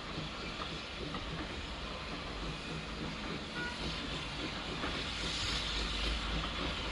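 Two small steam tank locomotives, LSWR Beattie well tank 30587 and Peckett "Rocket", double-heading a passenger train and working hard, with a steady steam exhaust and hiss over a low rumble. It grows louder over the last couple of seconds as the train comes closer.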